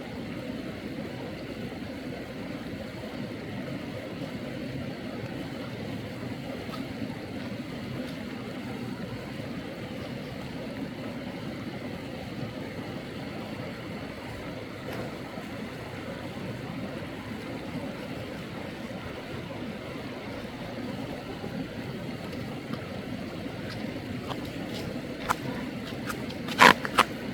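Mountain stream water flowing with a steady rush. A few sharp knocks near the end.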